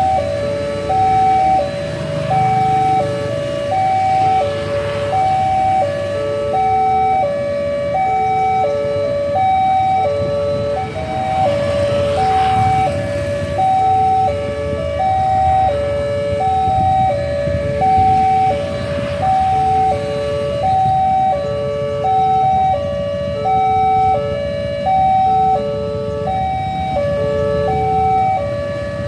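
Railway level-crossing warning alarm sounding a descending three-note electronic tone over and over, about once every one and a half seconds: the signal that a train is approaching and the barriers are down. Idling traffic rumbles underneath.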